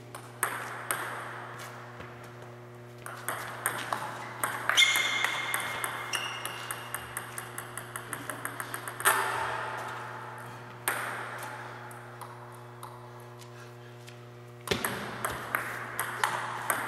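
Table tennis ball clicking sharply off paddles and the table in quick rally exchanges, each hit ringing briefly in a hard-walled hall. In the middle comes a quickening run of small ticks, like a ball bouncing to rest. A steady low electrical hum runs underneath.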